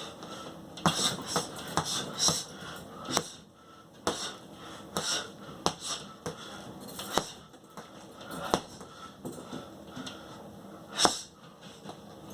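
A boxer training: irregular sharp hissing breaths out together with quick slaps or knocks, a few a second at most, the loudest about eleven seconds in.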